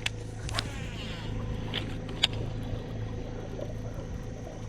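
Boat motor running steadily with a low hum, with a few sharp clicks in the first half.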